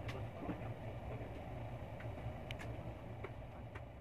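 Steady low background rumble with a few faint, short clicks of fingertips tapping an iPhone X touchscreen keypad, a pair of them about two and a half seconds in.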